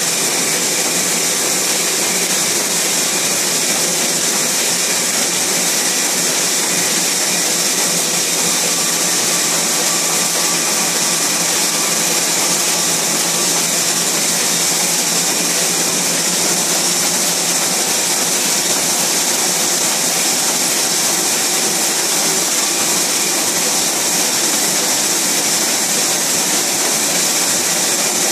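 Steady, unbroken machine hiss from a two-colour Aurelia Elite sheet-fed offset press and its equipment.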